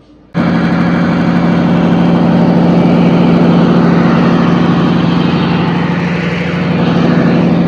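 Large enclosed diesel generator set running at a steady speed: a loud, even engine hum with a strong low drone. It cuts in abruptly about a third of a second in.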